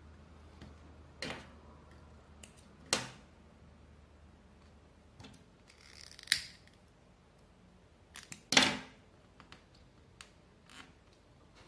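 Scissors snipping thread, a few separate sharp snips with the loudest about eight and a half seconds in, among small clicks of handling. About six seconds in, a lighter is struck with a brief hiss.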